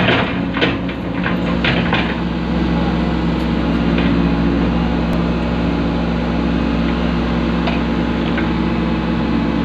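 Excavator's diesel engine running steadily, heard from inside the cab, with a few knocks in the first two seconds.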